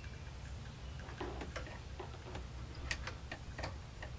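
Irregular light clicks and clinks of hand tools and metal parts as a small lawnmower engine is worked on by hand, over a steady low rumble.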